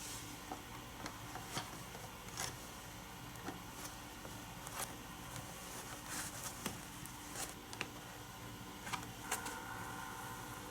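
Scattered light clicks and taps from handling plastic toy track pieces, with a faint steady tone coming in about nine seconds in.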